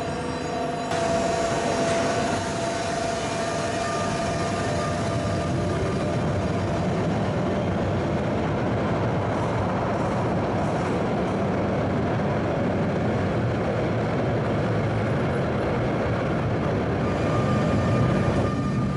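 Genova Metro train running, a steady rumble of wheels on rails with faint steady whines that come and go.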